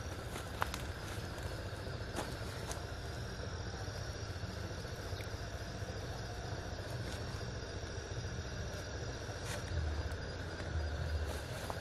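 Steady night-time insect chirring over a continuous low rumble that swells near the end, with a few faint clicks.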